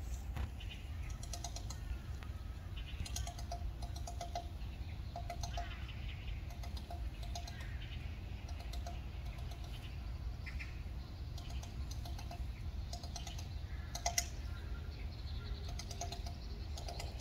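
Japanese pygmy woodpecker pecking at tree bark: irregular runs of quick, sharp taps, the strongest about 14 seconds in, over a steady low hum.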